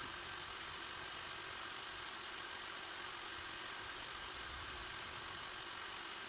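Faint steady hiss and hum of room tone with a thin high whine, with no events in it.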